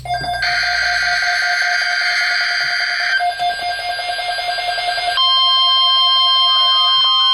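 NOAA weather radio sounding a severe thunderstorm watch alert: buzzy digital header tones for the first few seconds, then a steady high alert tone from about five seconds in, with a stepped beeping joining near the end.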